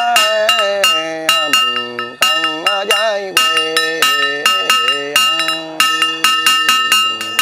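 A Buddhist monk chanting a funeral liturgy in a drawn-out, melodic voice, over a small metal bell struck quickly and evenly, about three or four strikes a second, its ring carrying on between strikes.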